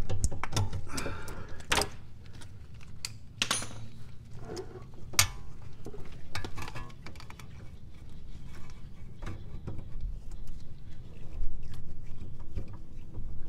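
A ratchet wrench clicking and metal tools clinking as a 13 mm nut on a Porsche Cayman's power steering rack is worked loose. The clicks come irregularly, with a few sharper knocks in the first half.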